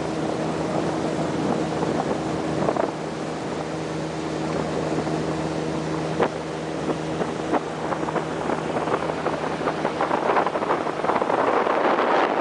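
A motorboat's engine running at a steady pitch, with wind and water rushing past. Toward the end the engine tone fades under a louder rushing noise, with a few sharp knocks along the way.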